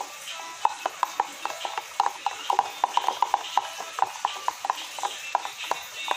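A thin metal spoon clicking and scraping against the inside of a plastic tub as it stirs a cereal feeding mix, in quick irregular taps several times a second.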